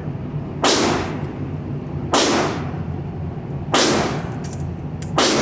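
Gunshots at a shooting range: four sharp reports about a second and a half apart, each with a short echo, the last near the end.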